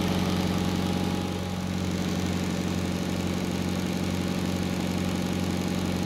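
Steady low electrical hum with a faint buzz from the powered HVAC training board running in heat mode, its contactors, relays and fan energized. It holds steady throughout.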